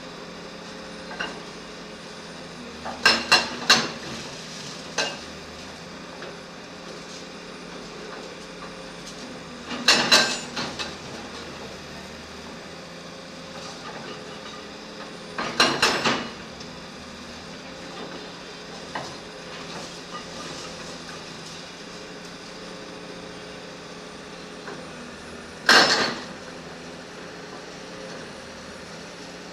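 Excavator's diesel engine running steadily, with loud clusters of metallic clanks every several seconds as the steel bucket strikes and scrapes the metal rod it is pulling from the ground.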